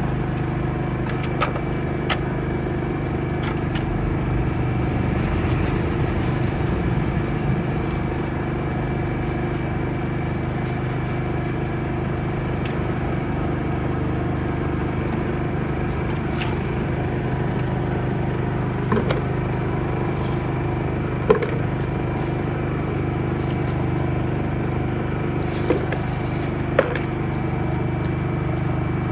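Engine of a high-pressure drain-jetting machine running steadily, with a few short knocks and clicks over it.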